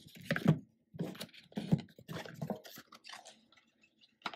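A cardboard album box and the paper and card inside it being handled: irregular rustling, scraping and light tapping for about three seconds, thinning to a few faint clicks near the end.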